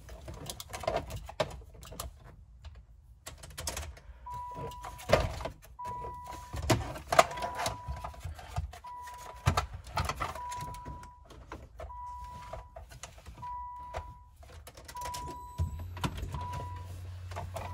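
Clicks, knocks and rattles of loose plastic console trim and the automatic shifter being handled, while the car's warning chime beeps steadily about once every second and a half from a few seconds in. A low hum comes on near the end.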